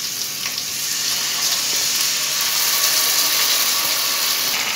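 Sauce poured into a hot kadai of onions and capsicum frying in oil: a steady sizzle that swells a little about a second in as the liquid hits the hot pan.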